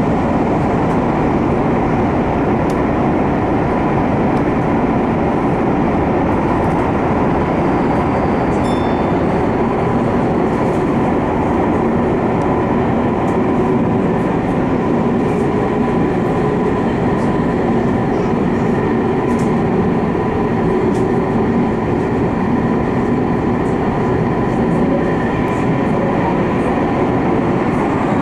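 Tokyu 5050 series electric train running through a subway tunnel, heard from inside the front car: a steady rumble of wheels on rail and tunnel noise, with a faint constant whine.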